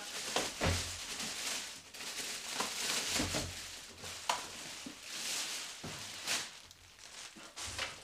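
Clear plastic bag rustling and crinkling as it is pulled off a robot vacuum's charging base, with a few dull knocks of the base being handled.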